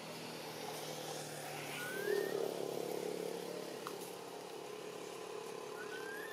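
Motor engine running steadily, swelling about two seconds in and then holding a steady hum. A few short, rising high chirps sound over it, one about two seconds in and two near the end.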